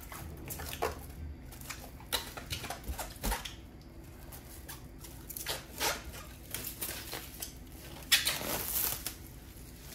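Plastic cling film being pulled off its roll and pressed around a cut mango half, a run of crinkles and crackles with a louder rustle about eight seconds in.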